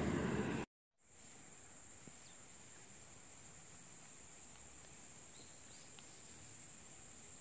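A loud rushing noise that cuts off abruptly under a second in, then after a brief gap, faint crickets trilling steadily in one continuous high note.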